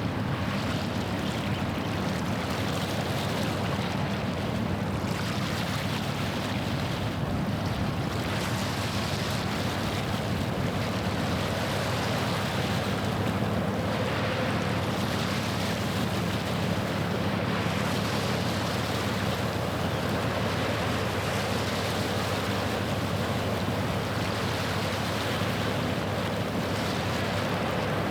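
Low, steady drone of a passing ship's engine under a wash of waves lapping at the shore, with some wind noise on the microphone.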